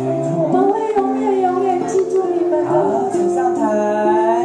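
A song with singing over an instrumental backing, played through a PA loudspeaker; a sung note is held near the end.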